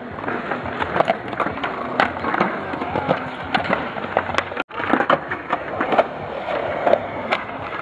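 Skateboard wheels rolling on concrete, with frequent sharp clacks of boards hitting the ground. The sound drops out briefly about halfway through.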